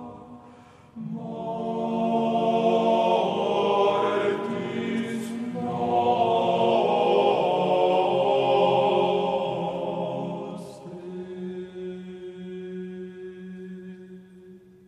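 Slow chant-like vocal music with long held notes, a new phrase starting about a second in and again around six and eleven seconds, fading out near the end.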